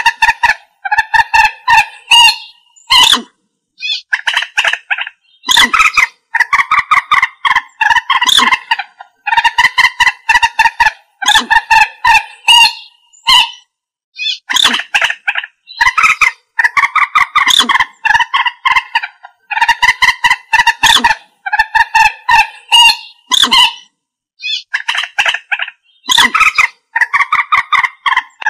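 Common moorhen calling: repeated bursts, each about a second long, of rapid stuttering harsh calls, separated by short gaps.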